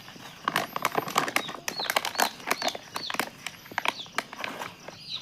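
Broiler chicks peeping, many short falling chirps overlapping, with a busy patter of clicks and taps among them.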